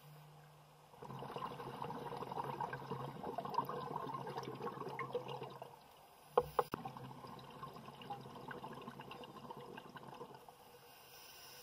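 Scuba diver's exhaled breath bubbling out of the regulator underwater: a rush of crackling bubbles starting about a second in and lasting some five seconds, then two sharp clicks and a second, weaker stretch of bubbling.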